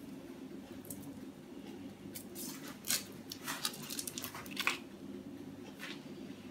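Foil wrapper of a wedge of portion cheese crinkling as it is peeled open, a cluster of short crackly rustles, over a low steady hum.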